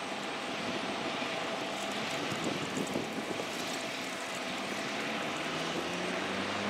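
Diesel engines of an approaching freight train led by a GE ET44AH locomotive, a steady drone with a few faint held tones; one tone starts to rise slightly near the end.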